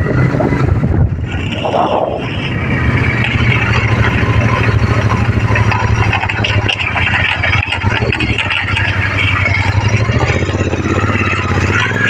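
Motorbike engine running steadily at low speed with a constant low hum, riding along a rough dirt track.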